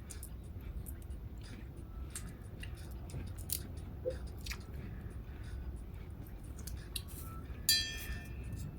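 Someone eating crab: scattered small cracks and clicks of shell and chewing. About three-quarters of the way in there is one short ringing clink.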